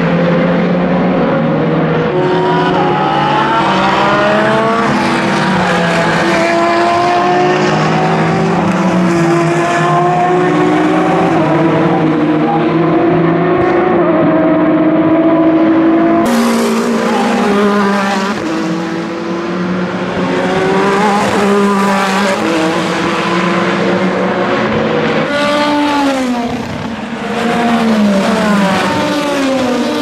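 Peugeot 9X8 hypercar's twin-turbo V6 racing hard, its pitch climbing again and again through upshifts. In the second half it drops in pitch through quick downshifts as the car brakes, twice.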